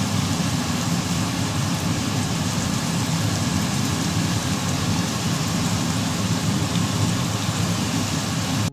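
Thin-sliced beef sizzling steadily as it fries in a pan.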